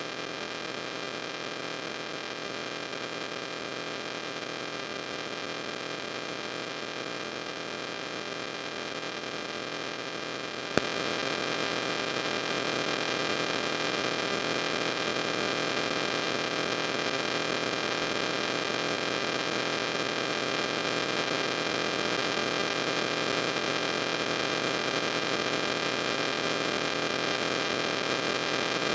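Steady electrical hum and hiss, with no other sound. About eleven seconds in there is a single click, after which the hiss is a little louder.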